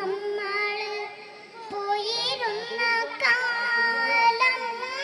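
A young girl singing into a handheld microphone, holding long notes, with a short break about a second and a half in.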